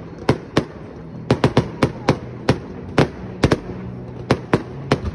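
A fireworks display going off: a dozen or so sharp bangs at irregular intervals as aerial shells burst overhead.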